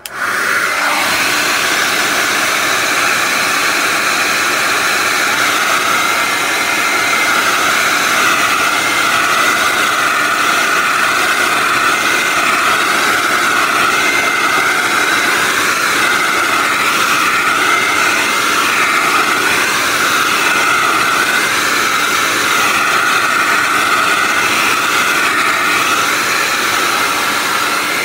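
Handheld hair dryer switching on and then blowing steadily, a loud rush of air with a high whine, directed at wet acrylic pour paint on a canvas.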